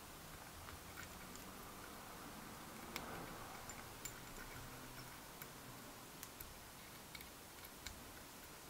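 Faint, scattered small metallic clicks and ticks, about ten of them spread unevenly, from a hex key and small metal parts being handled while a rocker assembly is screwed onto a miniature engine's cylinder head.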